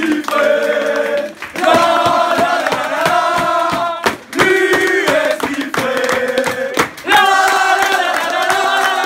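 A football team's players singing their changing-room war cry together as a chant, with hand-clapping. The sung phrases last a few seconds each and break off briefly about a second and a half, four and seven seconds in.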